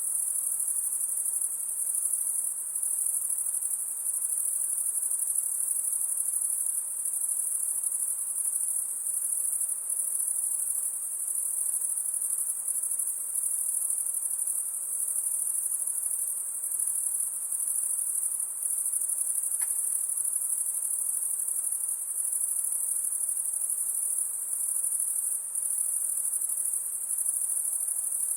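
Steady, high-pitched insect chorus like massed crickets, a continuous trill that starts abruptly.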